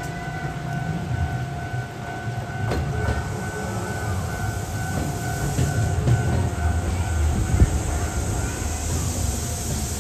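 Shizuoka Railway 1000-series electric train running into the station. Its low rumble grows toward the middle, with a few sharp clicks, and a steady high tone sounds underneath throughout. A hiss rises near the end as the train comes to a stop.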